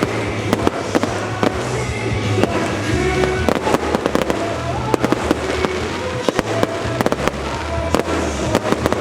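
Fireworks going off in many sharp, irregular bangs, several a second, over music from the stadium speakers.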